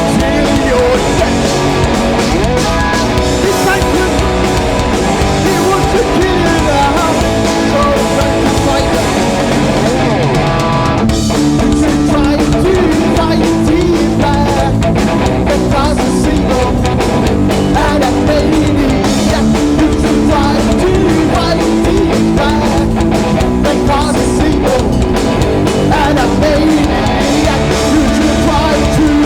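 Live punk rock band playing loud distorted electric guitars, bass and drum kit, with an instrumental stretch and a little singing.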